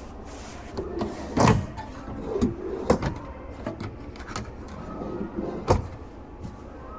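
Plastic drawers of a DeWalt ToughSystem 2.0 drawer unit being slid open and shut, with several sharp plastic clacks, the loudest about a second and a half in, near three seconds and near six seconds.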